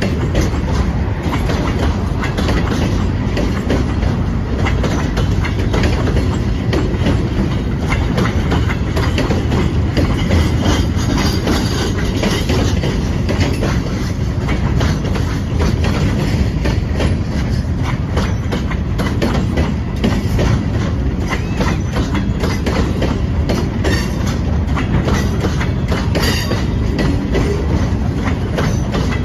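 HO-scale model train rolling along the layout track: a steady rumble with a dense run of small clicks from the wheels over the rail joints.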